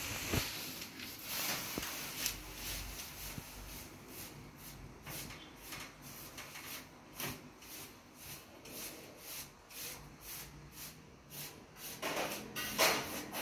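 A paint sponge dabbed and rubbed over a raised-relief plaster wall, applying metallic paint: a run of soft scuffing strokes, roughly one or two a second, growing louder near the end.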